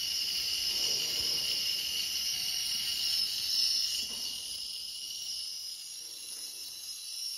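Titanium-alloy ultrasonic probe sonicating liquid in a glass beaker: a steady high-pitched hiss made of several shrill tones, the sound of cavitation in the liquid.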